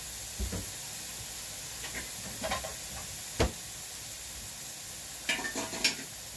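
Chopped bell peppers sautéing in oil in a pan, a steady sizzle, with a few short sharp knocks and clatters, the loudest about three and a half seconds in and another cluster near the end.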